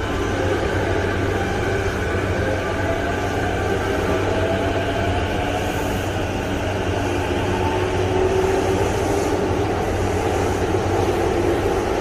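Electric commuter train moving off alongside the platform: a steady rumble of wheels on rail with a traction-motor whine that rises slowly in pitch as it gathers speed, heard through the open door of a stopped train.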